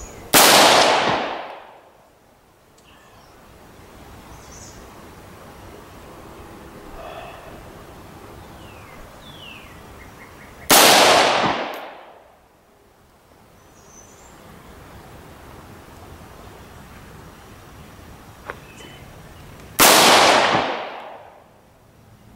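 Scoped AR-15 rifle fired three single shots about nine to ten seconds apart, each sharp crack ringing off over about a second and a half.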